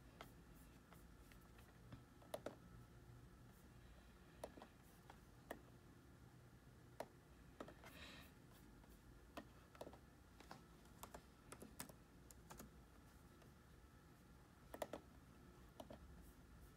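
Faint, scattered clicks of a laptop being operated, about a dozen at irregular intervals, over quiet room tone.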